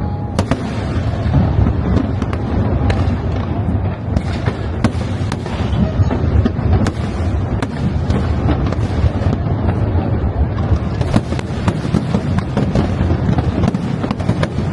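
Fireworks display: a continuous low rumble of bursts with sharp bangs and crackles going off several times a second.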